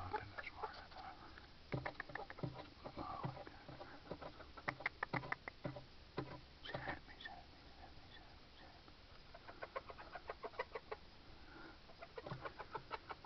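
Domestic hens clucking, with runs of quick short clucks several times and softer murmuring calls in between.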